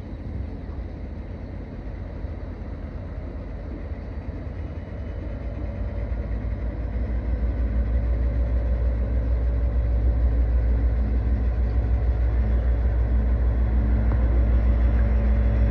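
Diesel locomotive engines of a wood chip train running with a low, pulsing rumble that grows louder over the first half, then holds steady.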